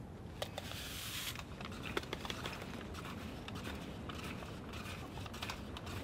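Faint handling sounds at a steaming camp mug of coffee: a soft hissing rustle in the first second or so, then scattered small clicks and taps.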